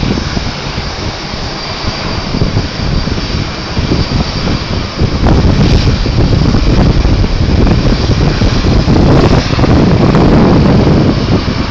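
Jet airliner engines running, a loud steady roar that swells about five seconds in and holds.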